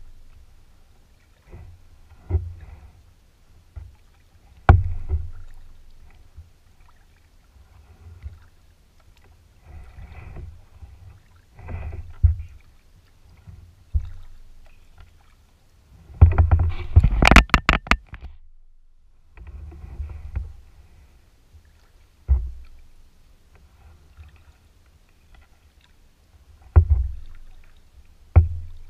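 Kayak paddling: the paddle dips and swishes through the water with a knock on the plastic hull every second or two. A little past the middle comes a quick run of sharp clattering knocks, the loudest moment.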